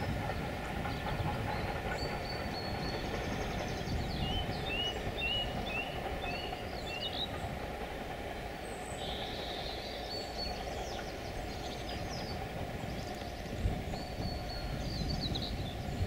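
Steam-hauled passenger train running past at a distance, a steady rumble of engine and coaches on the rails. Birds chirp over it, with a quick run of five short notes partway through.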